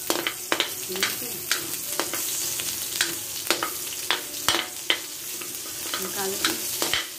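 Pork, garlic and freshly added onions sizzling in hot oil in a metal wok, with a steady hiss. A metal spatula scrapes and clanks against the wok as the food is stirred, giving a dozen or so sharp, irregular strikes.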